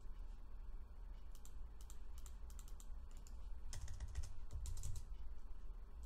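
Computer keyboard typing: short runs of keystrokes with pauses between them, over a low steady hum.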